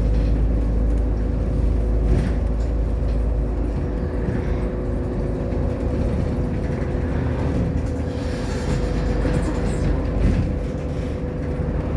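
Irisbus Agora L articulated city bus on the move, heard from on board: a steady low engine and road rumble with a constant whine over it.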